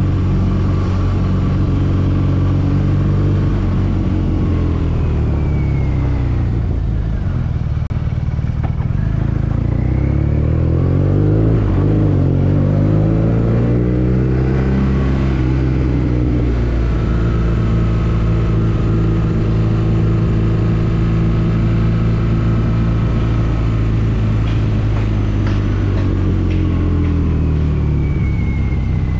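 BMW R nineT's boxer twin engine running on the move, heard from the rider's seat. Its note falls as the bike slows in the first few seconds, climbs as it accelerates around the middle, holds steady, then drops away near the end.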